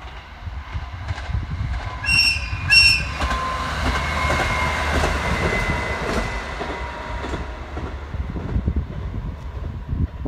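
Single-car JR Hokkaido KiHa 40 diesel railcar crossing a bridge: two short horn toots about two seconds in, then a steady engine whine over the low rumble of the wheels, fading as it moves away.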